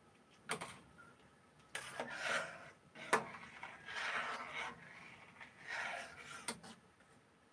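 Spoon stirring lentil soup in a steel pot: a few soft scraping strokes, with a couple of light clicks of the spoon against the pot.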